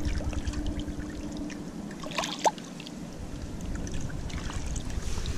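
Shallow pond water trickling and lapping around hands holding a tarpon in the water to revive it, with a few small splashes about two seconds in.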